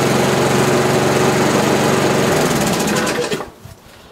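Mountfield SP53 self-propelled lawnmower's petrol engine running steadily on its first run after standing unused for three years. About two-thirds of the way through it winds down and stops.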